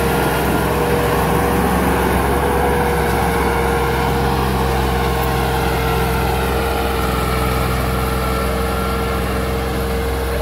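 Diesel farm tractor engine running hard under load, pulling a heavily loaded brick trailer across soft ground. Its low engine note is steady, with a steady high whine over it.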